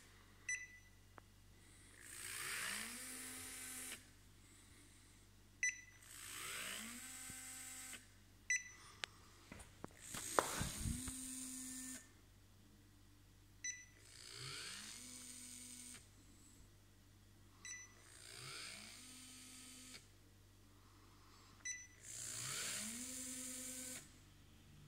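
Small DC gearmotor driving the scanner's geared axis, spinning up with a rising whine and running about two seconds at a time, repeated six times at roughly four-second intervals. Short high electronic beeps sound in the pauses between runs, as the laser measuring head moves in steps.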